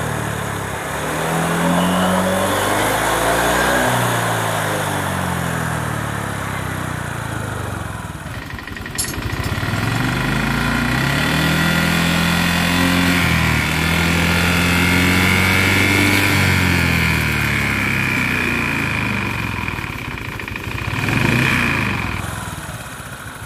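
Honda Vario 125 scooter's liquid-cooled single-cylinder engine running and revved up and down several times, with a sharp click about nine seconds in and a brief louder swell near the end. The engine has been rebuilt after overheating, with a new piston, a rebore and a new water pump, and is running fairly smoothly.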